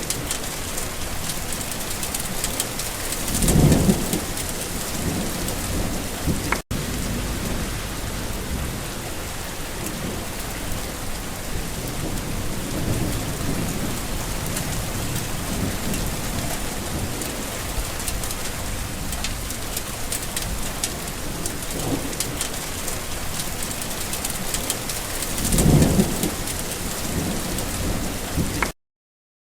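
Steady heavy rain falling, with two low rolls of thunder, one a few seconds in and one near the end. The sound drops out for an instant early on and cuts off abruptly just before the end.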